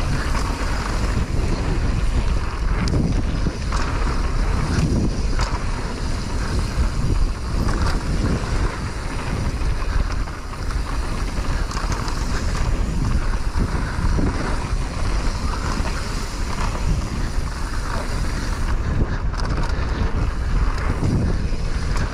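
Wind buffeting the microphone over the rumble and rattle of a mountain bike riding fast down a dirt trail, with scattered knocks from the bumps.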